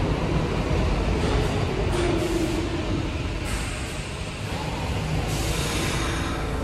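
New York City subway train running in the station with a steady deep rumble. A brief tone sounds about two seconds in, and two spells of air hiss start about three and a half and five seconds in.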